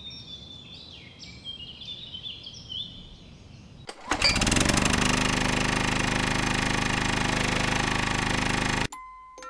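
Faint bird chirps over quiet background. About four seconds in, a loud, steady motor drone starts abruptly and cuts off sharply near the end.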